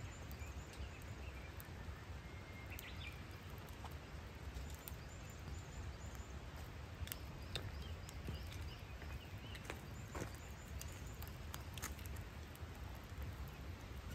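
Wood fire burning in a small folding fire pit, crackling with scattered sharp pops over a steady low rumble.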